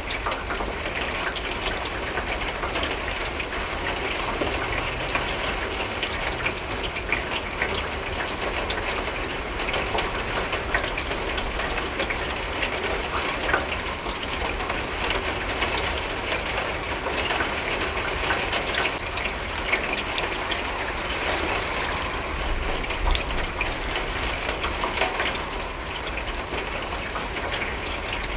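Steady rain hitting a window, a dense even patter of many small drops tapping the glass.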